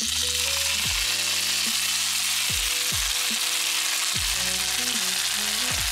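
Cornstarch-and-water slurry sizzling in a hot oiled pan around pan-frying dumplings: a dense, steady hiss of water hitting hot oil.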